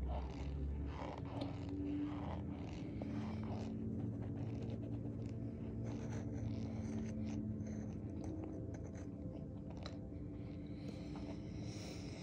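Metal spoon scraping and crunching through packed cornstarch in a tub, a run of short gritty strokes that is busiest in the first few seconds.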